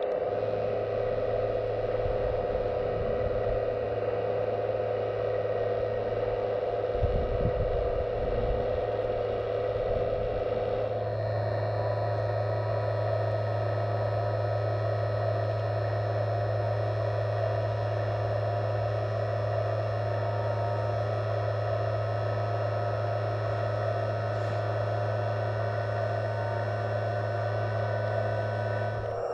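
Steady electric hum and whine of a 1/15-scale RC hydraulic construction model's pump motor, with some low rumbling about seven seconds in; the tone shifts and the hum grows stronger about eleven seconds in, as the load on the hydraulics changes.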